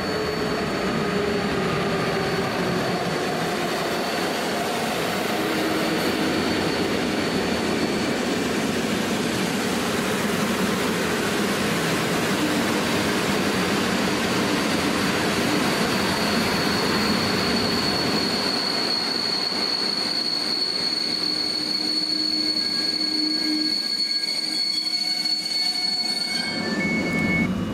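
Long locomotive-hauled passenger train, led by a Pesa Gryf (EU160) electric locomotive, braking into a station with a high steady wheel and brake squeal over rolling noise. The motor whine falls as it slows, and the train comes to a stop near the end.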